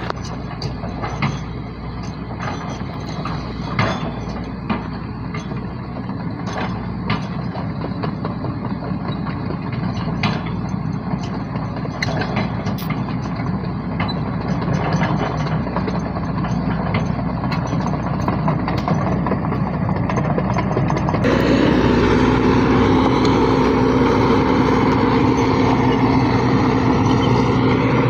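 Excavator diesel engine running steadily under work, with scattered clanks and knocks. About 21 seconds in, the sound changes abruptly to a louder engine with a wavering whine.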